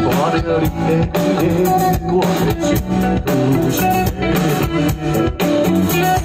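Live rock band playing an instrumental passage: electric guitar lines over bass guitar and a steady drum-kit beat.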